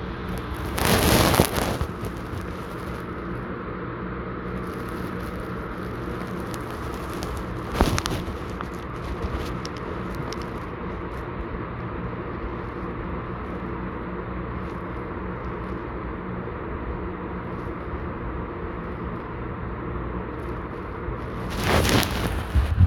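A steady hum made of several low tones, broken by short bursts of rustling or handling noise about a second in, once near the middle, and again near the end.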